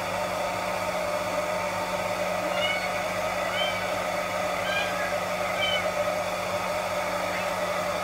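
A hair dryer runs with a steady whir. Over it, a Norwegian Forest Cat kitten gives several short, high, faint mews.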